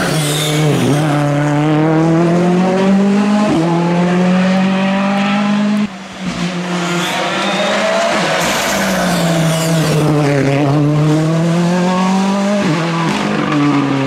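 Two Ford Fiesta R5 rally cars at full effort, one after the other, their turbocharged four-cylinder engines revving hard. The pitch dips as each car slows into a corner, then climbs again with sudden drops at the gear changes. The second car takes over about six seconds in.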